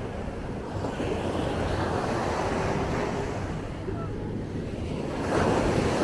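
Ocean surf: waves breaking and washing up the beach, with a louder wave breaking near the end, and wind rumbling on the microphone.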